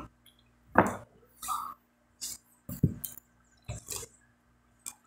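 Close-up eating sounds of a person chewing a buttered bread roll: short, irregular mouth smacks and chewing noises with brief pauses between them, the loudest about a second in.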